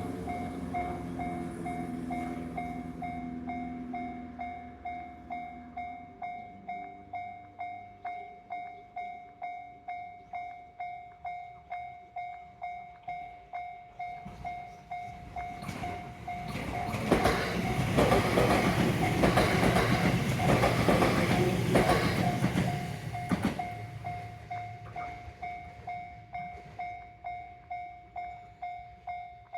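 Japanese railway level-crossing bell ringing steadily, about two strikes a second, while a train passes over the crossing about halfway through, its wheels clacking over the rail joints. The bell cuts off at the very end.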